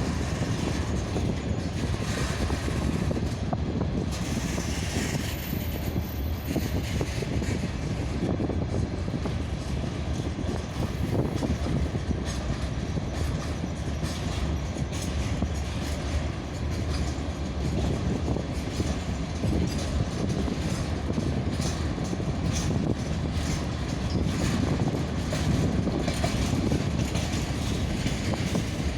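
Freight train rolling very slowly past on the rails, a steady rumble of wagon wheels and running gear.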